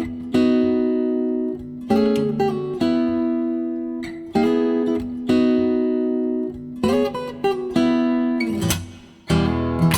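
Background music: acoustic guitar chords struck about once a second and left to ring out.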